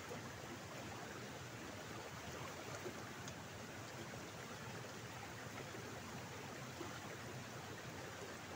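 Shallow water running steadily along a narrow stone-lined irrigation channel: an even, unbroken rush.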